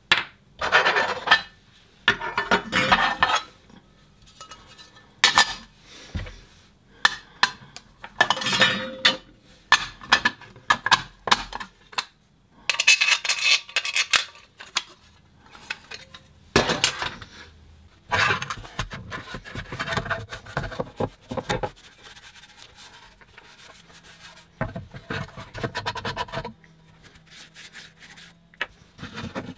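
Black plastic parts of a Briggs & Stratton push-to-prime carburettor and fuel tank assembly being handled and taken apart on a worktop: irregular clatters, knocks and rubbing, some sharp, with a quieter stretch of lighter rubbing past the middle.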